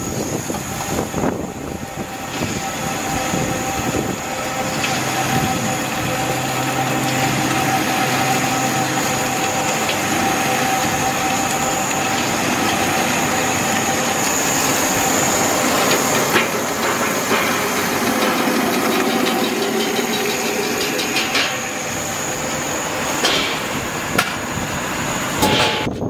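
22 kW nut butter grinding machine running steadily while grinding roasted hazelnuts into paste, with a constant high whine over its motor noise. A few brief clicks come in the second half.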